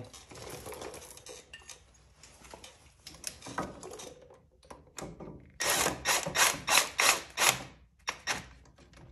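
Hand ratchet wrench clicking through a quick run of about eight strokes, about four a second, a little over halfway in, tightening a fastener on the motorcycle's rear brake caliper. Quieter metal tool handling comes before it.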